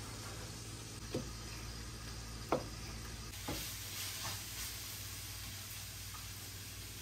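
A chef's knife cutting through cherry tomatoes onto a cutting board, three sharp knocks about a second apart. Then chicken frying in a pan gives a hissing sizzle as it is stirred, over a steady low hum.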